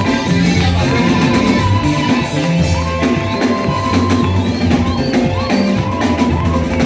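A band playing praise music: drum kit, guitar and bass, loud and continuous.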